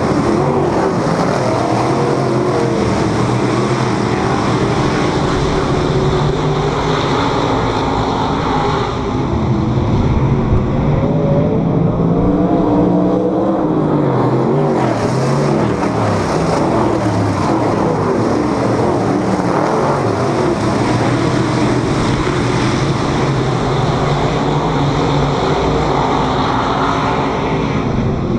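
A field of dirt modified race cars racing on a dirt oval. Several V8 engines are heard at once, rising and falling in pitch as the cars go down the straights and through the turns.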